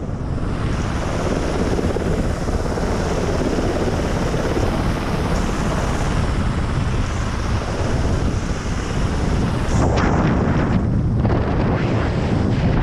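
UH-60 Black Hawk helicopter overhead, its rotors and downwash making a loud, steady rumble. Wind buffets the microphone of a soldier hanging below on a SPIE rope, growing gustier near the end.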